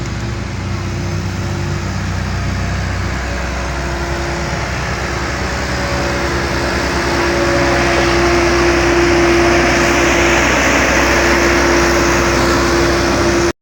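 Engines of heavy road-paving machinery running steadily with a constant whine, growing louder about seven seconds in.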